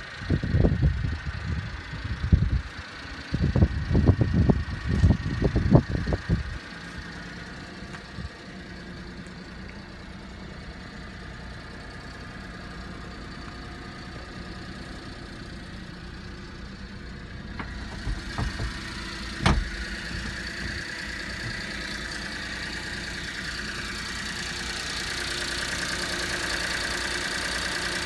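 Mitsubishi Minicab kei truck's small three-cylinder engine idling steadily. Loud low thumps and knocks come in the first several seconds and a single sharp knock about two-thirds of the way through. Near the end the engine grows louder with the engine bay under the seat open.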